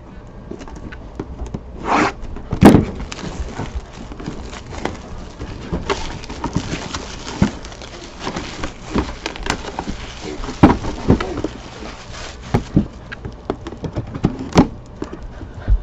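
Plastic shrink wrap being slit and peeled off a cardboard box, crinkling and crackling in irregular bursts, with sharp knocks as the box and knife are handled; the loudest knock comes about three seconds in.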